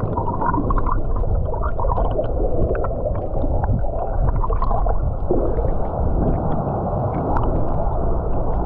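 River current rushing and churning with air bubbles, heard through a submerged camera: a steady muffled rumble with many small scattered ticks and pops.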